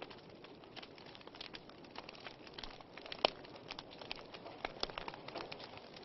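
Wood fire crackling over a low hiss, with irregular sharp pops from the burning log and embers. The loudest pop comes about three seconds in.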